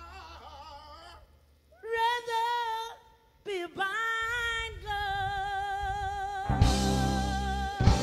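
Background music: a soul song with a singer holding long, wavering notes, broken by short pauses. The accompaniment comes in louder with a few sharp hits about two-thirds of the way through.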